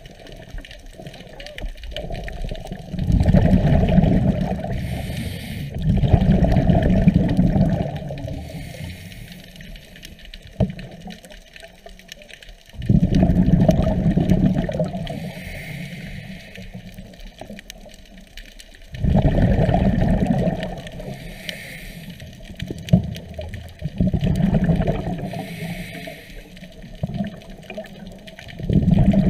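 Scuba diver's exhaled bubbles from the regulator, heard underwater: a bubbling gush lasting about two seconds, repeating every five to six seconds in time with the diver's breathing, with a few faint clicks in between.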